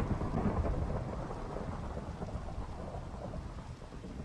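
Rain falling with a long roll of thunder, loudest at the start and slowly fading.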